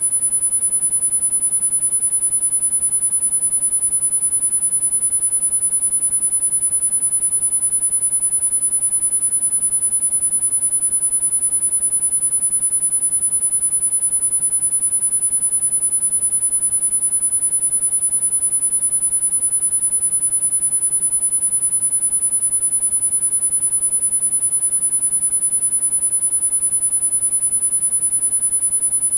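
A single steady pure tone, very high-pitched and unwavering, used as a tinnitus-matching sound-therapy frequency.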